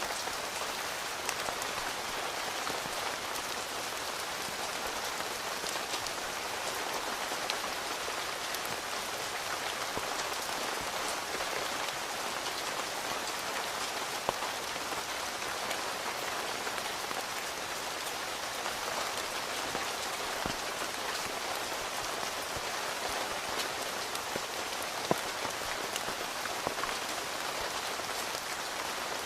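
Steady rain falling on a tent and the surrounding forest, an even hiss with many scattered drops tapping sharply; two drops stand out louder, about halfway through and near the end.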